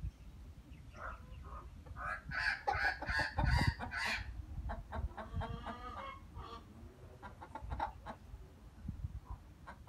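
Domestic chickens clucking: a run of short calls, busiest and loudest a couple of seconds in, then fewer and fainter.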